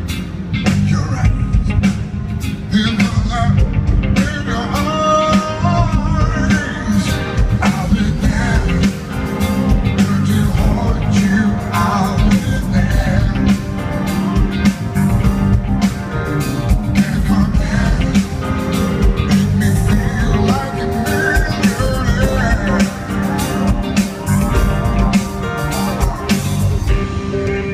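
Live band music with a male singer singing over it: guitar, bass and drums keeping a steady beat under the lead vocal.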